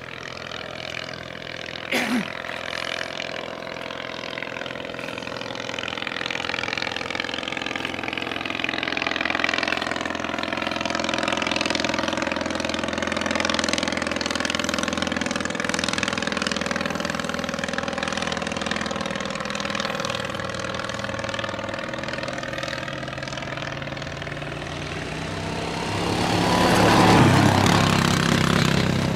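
The English Electric Wren's tiny 398cc ABC motorcycle engine running steadily as the ultralight monoplane flies past, growing louder as it comes close, its pitch sliding slowly with the pass. A short sharp sound about two seconds in, and a louder rushing noise swelling near the end.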